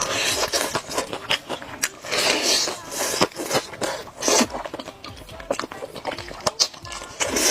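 Close-miked eating sounds: irregular bites and crunchy chewing with sharp wet clicks.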